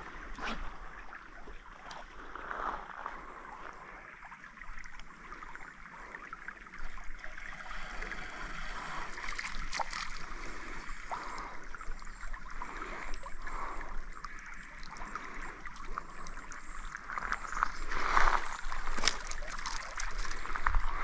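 Small creek running and trickling over shallow gravel riffles, a steady babbling, with a few brief clicks and knocks over it.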